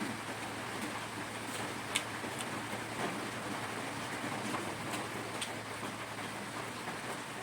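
Steady rain falling, with a few sharp clicks scattered through it.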